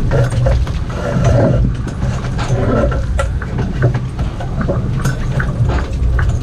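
Steady low rumble of the sportfishing boat's engine, with scattered clicks and knocks from gear and the deck.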